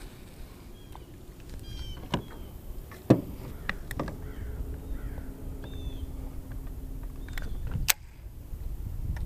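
Rod and baitcasting reel being handled while a soft-plastic creature bait is flipped and worked: a few sharp clicks, the loudest about three seconds in and another near the end. Birds chirp briefly several times, and a low steady hum runs for a few seconds in the middle.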